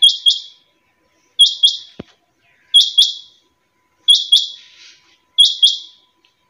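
Caged quail (chinga batair) calling: five loud, sharp double-note calls, one about every 1.3 seconds.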